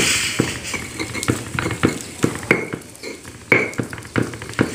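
Stone pestle grinding and knocking on a flat stone mortar (ulekan on cobek) as sambal ingredients are crushed: a gritty scraping broken by irregular sharp knocks.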